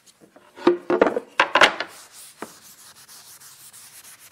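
Paper towels rubbing over a wooden cutting board, buffing out a coat of paste wax that has dried dull. A few louder strokes come in the first couple of seconds, then softer, steady rubbing.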